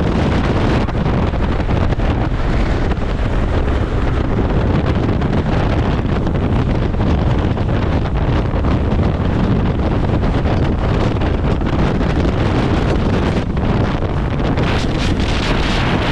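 Strong wind buffeting the microphone: a loud, steady low rumble with rushing hiss, rising in a brighter gust near the end.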